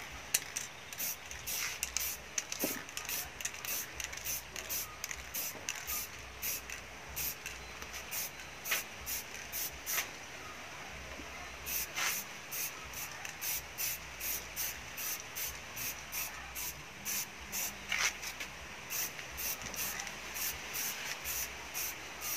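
Aerosol can of black spray paint sprayed onto a perforated metal speaker grille in short hissing bursts, roughly two a second, with a short pause about halfway through.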